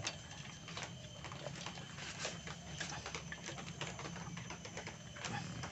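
Needle-nose pliers slowly turning a broken bolt stub out of an aluminium motorcycle crankcase, with faint scattered metal ticks over a low background hum.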